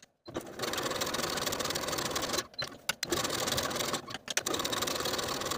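Janome Skyline computerized sewing machine running steadily as it stitches along a fabric edge, stopping briefly a few times as the fabric is turned and guided.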